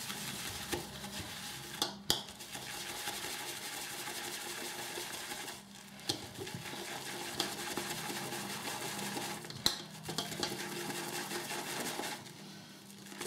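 RazoRock 28 mm beehive shaving brush whisking shaving soap and water into lather in a glass bowl: a steady wet churning, broken by short pauses every three to four seconds, with a few light clicks. The soap is at the early, pasty stage of building lather.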